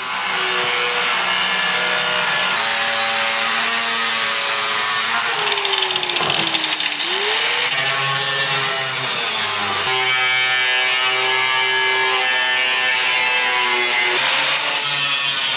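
Angle grinder with a cutoff wheel cutting through a steel drum, a steady whining grind. About five seconds in the motor's pitch drops under load, then climbs back up.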